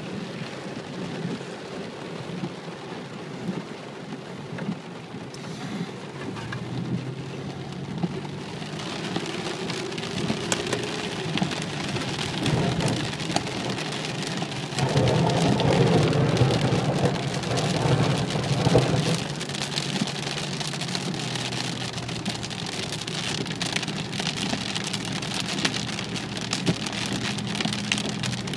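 Heavy rain falling on a car's roof and windshield, growing denser about a third of the way in, with a steady low hum underneath. A louder rumble swells for a few seconds just past the middle.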